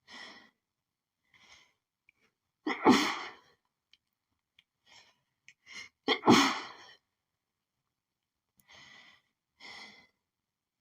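A woman sneezing twice, hard, about three and a half seconds apart, with short breaths between and after: an allergic sneezing fit that she puts down to pollen.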